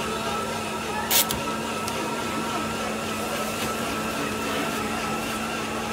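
Steady electrical hum of shop equipment over a background haze, with one sharp clink about a second in.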